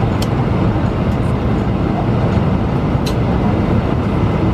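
Airbus A320 passenger cabin in flight: the engines and rushing air make a loud, steady rumble, strongest in the low end.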